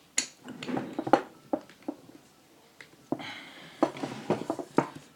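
Metal clicks, knocks and clatter of fan housing parts and nuts being handled and fitted during reassembly, with a short ringing scrape of metal about three seconds in.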